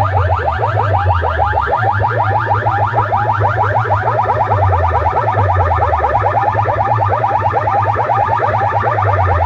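Large sound-system speaker boxes playing a loud, alarm-like effect at full volume: a fast chain of short rising chirps, several a second, over a heavy bass.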